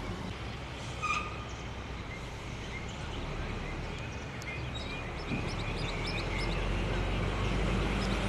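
Outdoor ambience with birds chirping, many short high chirps clustering in the second half. About five seconds in, a low engine hum comes up and grows steadily louder.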